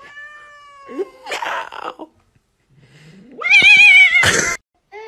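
Agitated domestic cat's warning sounds: a long drawn-out wail, a hiss, then a loud wavering yowl that ends in a sharp hiss.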